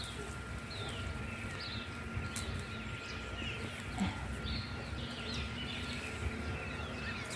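Small birds chirping, with short quick falling chirps scattered throughout, over low outdoor background noise and a faint steady high tone.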